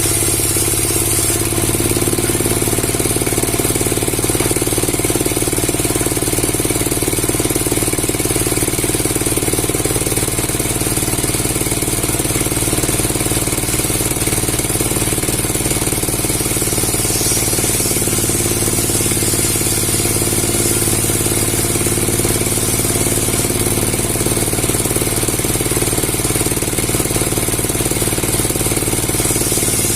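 A motor-driven machine running steadily with a constant hum and hiss, never letting up or changing speed.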